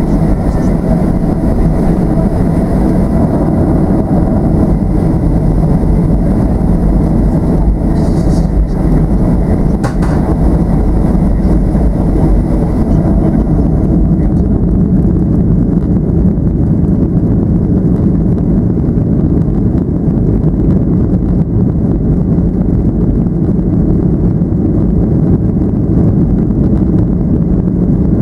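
Steady cabin rumble of a Boeing 737-800 heard from inside the passenger cabin, the CFM56-7B engines and airframe running while the aircraft is on the ground. A fainter high hiss drops away about halfway through.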